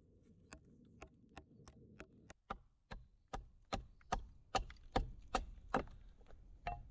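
Small hatchet chopping into a wooden log: a steady run of sharp knocks, about two or three a second, quieter at first and louder from about two seconds in.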